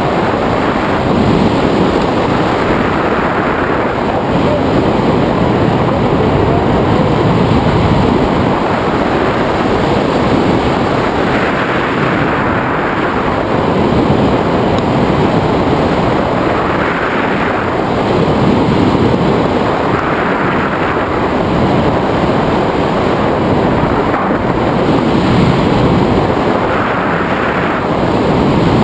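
Wind rushing over the microphone of a camera mounted on a hang glider in flight: a loud, steady roar of air that swells every few seconds.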